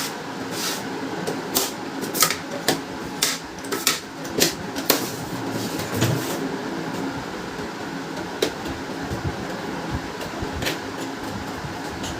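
Irregular sharp clicks and taps of an opened laser printer's plastic and metal parts being handled during servicing. They come thickly in the first five seconds and more sparsely after, over a steady low hum.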